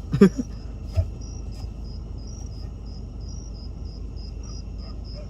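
A cricket chirping at an even, unchanging rate of about three chirps a second, over a low steady rumble. A short vocal sound comes near the start.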